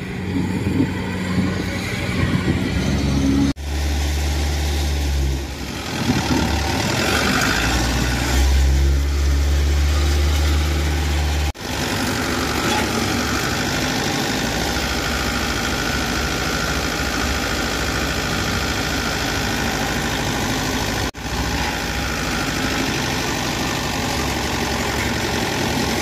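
Diesel engine of a 70 Plus rice combine harvester running steadily as the machine travels across the paddies. A heavy low rumble sits under it for the first half, and there are short sudden breaks in the sound.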